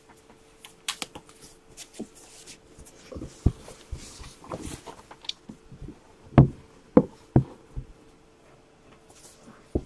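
Foam wrapping sheet rustling as a hard box is pulled out of it and handled, then a few sharp knocks as the box is turned and set down on the table, the loudest a little after six seconds in and another just before the end. A faint steady hum runs underneath.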